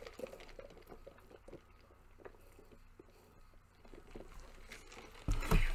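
Soft sipping and swallowing sounds from drinking soda through a straw in a large paper cup: faint small clicks and gulps. A louder, low knock comes near the end.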